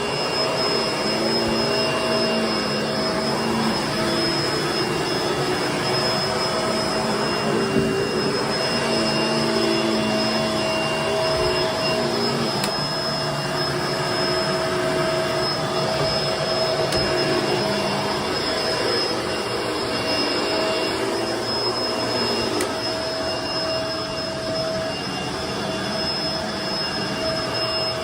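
Vacuum cleaner running steadily on carpet, a constant motor whine over a dense airflow hiss, with a lower hum that wavers slightly up and down as it is pushed over the carpet.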